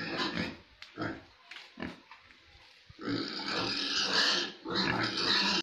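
Pigs grunting in short separate calls, then loud continuous squealing from about three seconds in.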